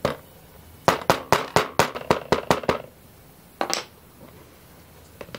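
Small hammer tapping on an SG90 micro servo set on a tiny plastic wheel: one tap, then a quick run of about nine light taps, then another tap or two a second later. The taps are seating the wheel on the servo's output shaft.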